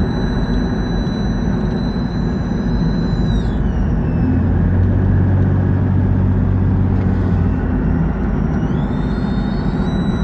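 2000 Jeep Cherokee 4.0L inline-six running with a high-pitched whistle over its low hum, a noise the owner takes for a vacuum leak. About a third of the way in, the whistle glides down and stops while the engine hum grows louder. Near the end the whistle slides back up and returns.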